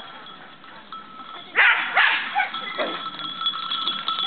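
A herding dog barking at sheep: two loud barks about a second and a half in, then a few quieter ones.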